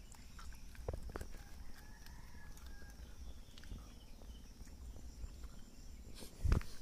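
Quiet handling sounds of a freshly caught small snakehead fish being held and worked off a hook and line: a couple of soft clicks about a second in and one heavier thump just before the end, over a faint steady high hiss.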